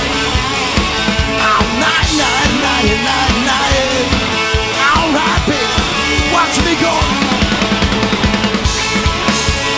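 Live rock band playing a song with drums, bass and electric guitars, no lyrics sung. The drums keep a steady beat under bending lead lines.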